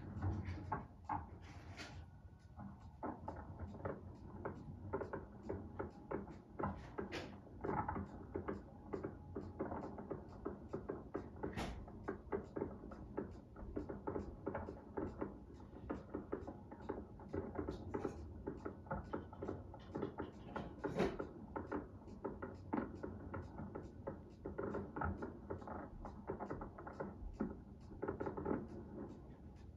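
Fireworks bursting and crackling, a dense, irregular run of sharp pops several a second, heard through a television's speaker.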